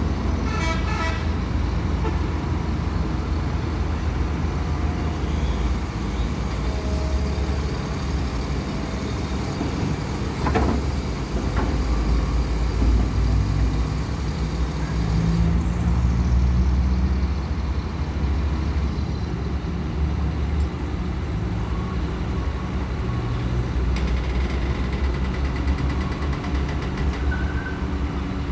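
Diesel engines of SANY hydraulic excavators running under load with a low, steady rumble that swells and eases as the booms work, with a short pitched tone about a second in.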